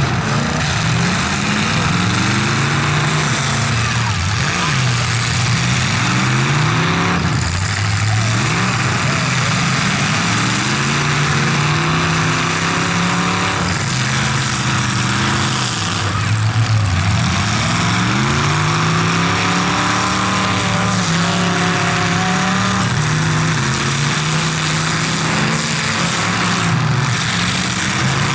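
Demolition derby cars' engines revving hard and easing off over and over, several at once, their pitch repeatedly rising and falling as the cars push and ram each other.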